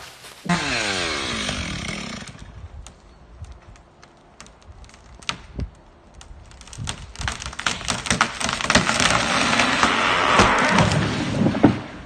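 A chainsaw engine winds down, its pitch falling, about half a second in. Scattered cracks of wood follow, then a long, loud rush of cracking and splintering branches builds over the last five seconds as a felled tree comes down.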